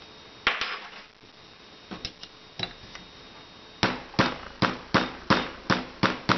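Ball-peen hammer tapping a pin punch to drive the extractor roll pin out of a Beretta PX4 Storm Compact's slide. A few light clicks as the tools are set in place, then, about two-thirds of the way in, a steady run of sharp taps at about two and a half a second.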